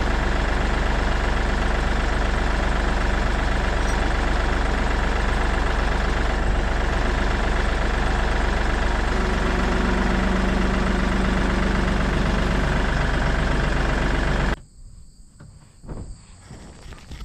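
Kioti tractor's diesel engine running steadily, holding up the goat-lifting bucket; it cuts off suddenly near the end.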